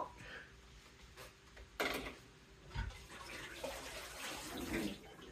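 Kitchen sink tap running water, with a sharp knock right at the start and another about two seconds in as things are handled at the sink.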